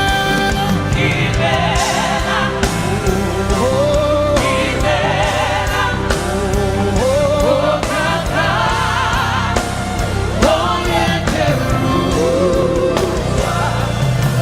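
Live gospel worship music: singers and a choir with vibrato over a full band with bass, keyboards and a steady drum beat.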